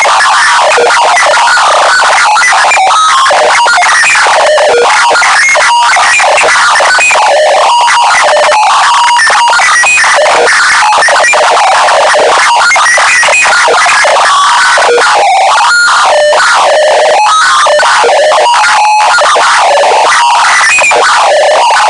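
Deliberately overdriven "earrape" audio: harsh, clipped distortion held at constant maximum loudness, with garbled synth-like tones buried in the noise and almost no bass.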